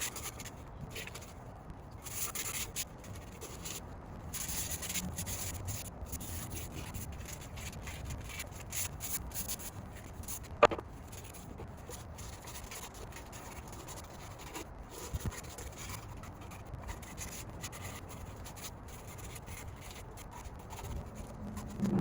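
Sandpaper rubbing over a wooden board in uneven scratchy strokes, with one sharp click about halfway through.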